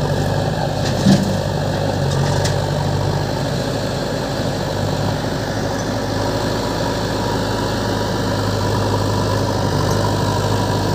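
Diesel engines of a John Deere tractor and a JCB backhoe loader idling with a steady low hum. There is a brief sharp knock about a second in.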